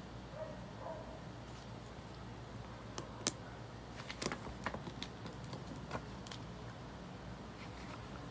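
Scattered light clicks and taps of hands handling thick textbooks and paper pages on a desk. The sharpest comes a little over three seconds in and a cluster follows between about four and six seconds, over a low steady room hum.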